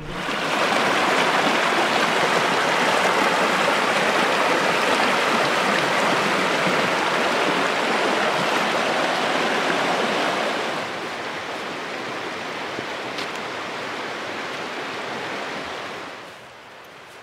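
River rapids rushing: a steady, loud wash of whitewater that drops in level about ten seconds in and falls away further near the end.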